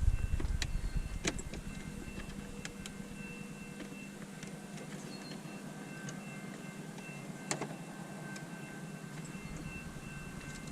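Car's climate-control blower fan running with a steady whirring hum, switched on by accident, with a few sharp plastic clicks from the cup holder trim being worked loose; the louder click comes about 7.5 seconds in.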